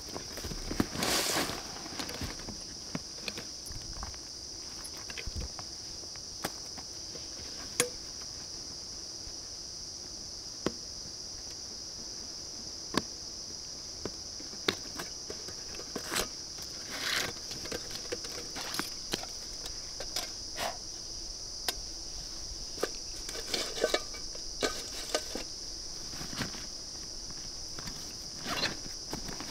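Steady high-pitched drone of forest insects, with scattered sharp clicks and short rustles from camping gear being handled, including a canvas backpack near the end.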